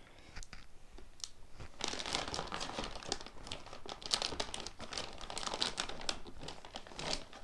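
Clear plastic parts bag crinkling and rustling as it is handled and opened. After a few faint clicks, the crinkling gets loud about two seconds in and keeps going, dense and crackly.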